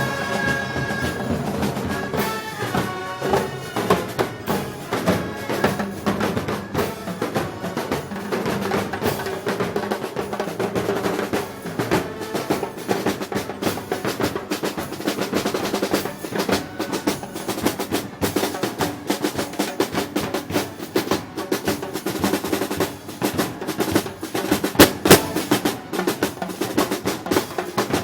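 Marching percussion playing: snare drums rolling over bass drum beats. A held wind melody fades out in the first couple of seconds.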